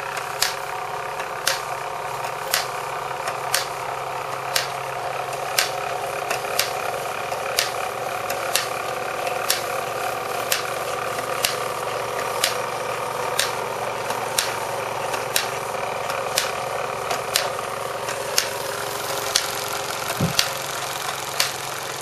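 Wilesco D14 toy overtype steam engine running under load, turning two lineshafts and a row of EKT model workshop accessories through string belts: a steady mechanical whirr. A sharp click about once a second comes from the driven models.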